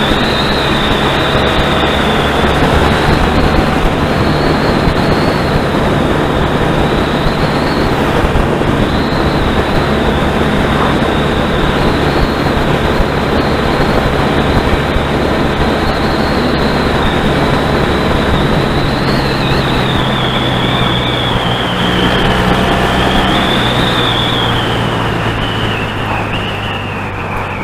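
Motorcycle engine running steadily while riding along, under heavy wind rush on a helmet-mounted microphone. Near the end the sound eases off and drops in pitch as the bike slows.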